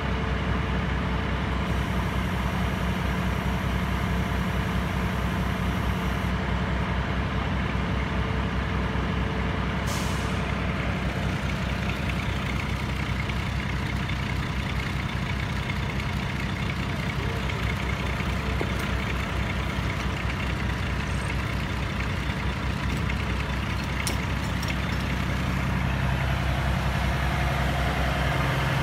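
Heavy diesel truck engine idling steadily, with a short hiss about ten seconds in; near the end the engine note shifts and gets louder.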